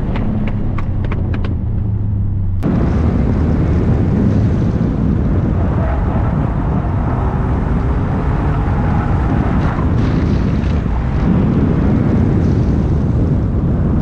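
Subaru WRX STI's turbocharged flat-four engine running steadily under way, heard from inside the cabin. About two and a half seconds in the sound cuts abruptly to an outside camera beside the front wheel, where a loud rush of wind and road noise covers the engine for the rest.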